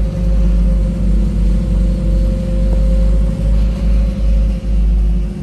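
Nissan GU Patrol with a turbocharged TB48 straight-six petrol engine cruising on the road: a steady engine drone over heavy low rumble that swells and dips.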